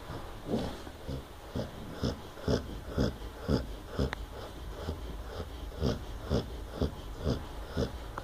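A sleeping pet snoring in short, rhythmic snorts, about two a second.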